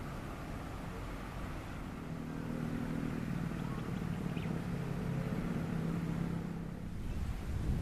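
Loaded Hino dump truck's diesel engine running as it drives along, its engine note growing louder about two seconds in and then holding steady.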